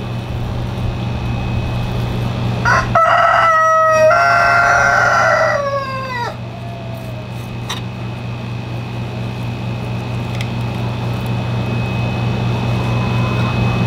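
A rooster crows once, a stepped call of about three seconds ending in a falling note, over a steady hum.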